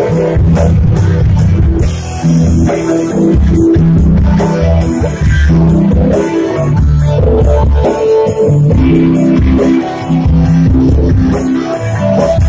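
Loud dance music with heavy bass and drums.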